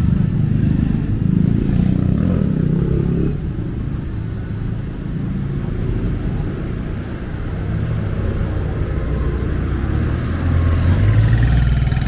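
Street traffic: motor vehicles pass close by with engines running. The engine noise dips through the middle and swells again near the end as a vehicle speeds up, its pitch rising.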